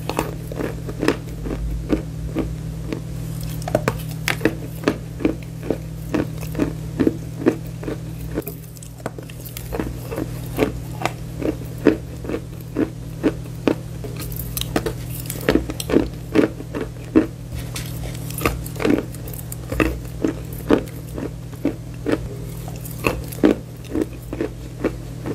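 Close-miked chewing of bar chalk: a steady run of crisp crunches, about two bites a second, over a steady low electrical hum.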